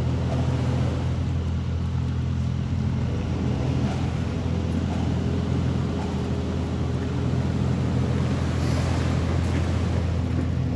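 Large machine's engine running steadily, a low even drone, as it pulls the fabric roof cover over the arena's arched frame on long lines.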